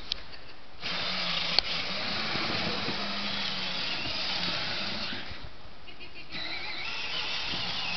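Battery-powered Barbie Jeep ride-on toy driving, its electric drive motors and plastic gearbox whining and its plastic wheels rolling. The motor sound starts just under a second in, drops away for about a second past the middle as it stops and starts again, with a sharp click near the start.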